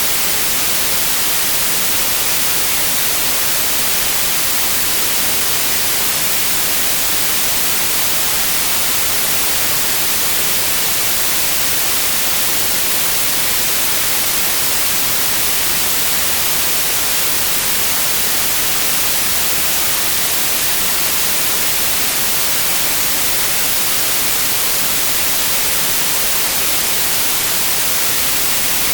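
Steady white noise, an even hiss with its energy strongest in the high frequencies, unchanging throughout.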